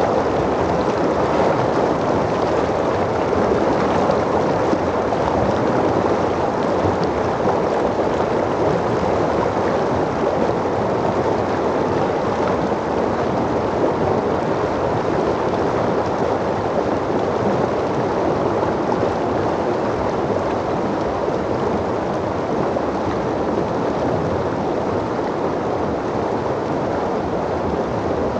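Fast mountain stream rushing and splashing over rocks close to the microphone, a steady loud rush of water.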